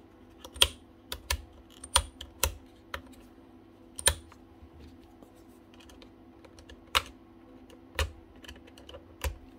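Irregular light clicks and taps of small parts being handled inside a Makita power tool as its wiring connections are checked by hand, with a faint steady hum underneath.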